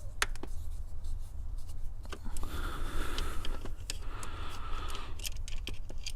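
Hand work on a car's steering-column parts: scattered sharp clicks of small metal and plastic parts, with two spells of scratchy scraping in the middle, over a steady low hum.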